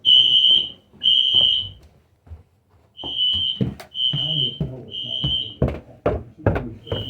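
Wheelock NS fire alarm horn sounding loud, high, steady blasts in groups of three with a pause between groups: the temporal-3 fire evacuation pattern.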